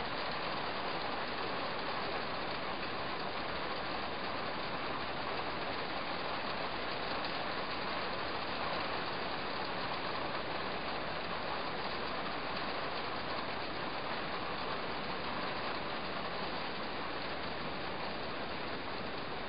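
Steady cabin noise inside a Land Rover Defender 90 TD5 driving in the rain: road, engine and rain noise blended into an even rush with no single sound standing out.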